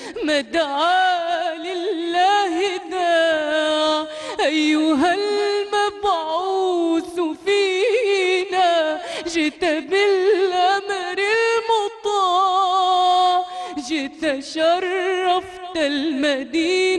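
A woman's solo voice singing an Arabic devotional nasheed, holding long notes with wavering melismatic ornaments and pausing briefly for breath a few times.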